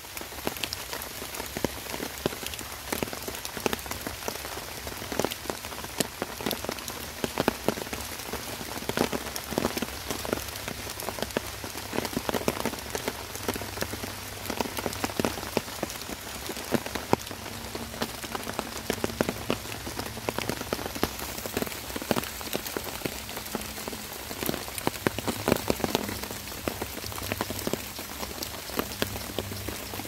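Rain falling on a tarp shelter: a steady hiss thick with the sharp taps of individual drops hitting the sheet.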